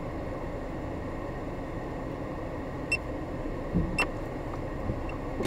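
Cabin noise inside a Renault Sandero creeping across a parking lot: a steady low hum of engine and tyres, with two light clicks about a second apart midway through.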